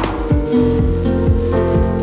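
Background music: held notes over a steady drum beat.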